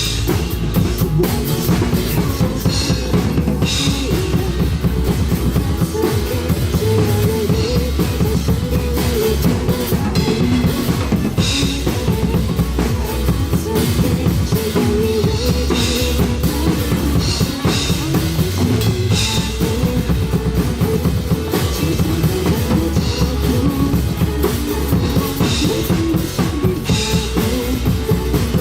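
Drum kit played to rock music: a steady kick-and-snare beat with cymbal crashes every few seconds.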